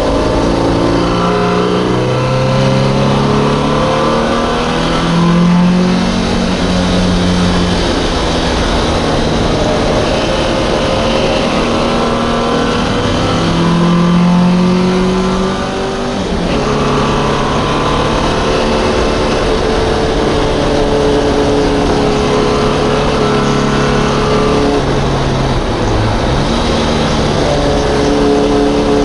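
In-car sound of a racing MGB's four-cylinder B-series engine at full throttle. Its pitch climbs through each gear and drops back at every gear change, with a brief lift and lower revs about halfway through.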